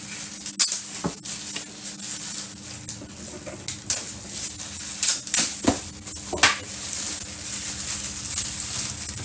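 Scattered light taps and clicks of a phone being handled on a marble tabletop, coming at irregular moments, over a steady low hum.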